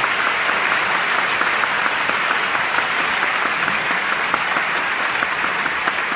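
Audience applauding: a dense patter of many hands clapping, easing off slightly toward the end.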